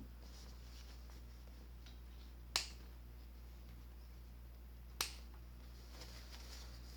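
Two sharp clicks about two and a half seconds apart over a faint, steady low hum.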